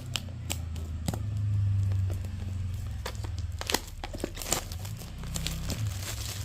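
Product packaging being opened and handled: plastic wrapping crinkling, with many scattered sharp clicks and taps, over a low rumble of handling noise.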